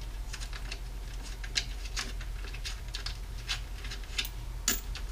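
Light, irregular clicks and taps from a vintage Gretsch tom and its parts being handled, one sharper click near the end, over a steady low hum.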